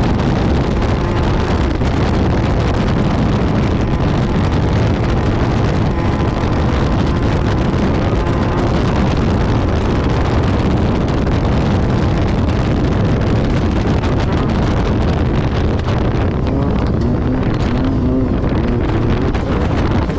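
Class 10 off-road race buggy's engine running hard at speed, with wind buffeting the microphone. The engine note climbs near the end.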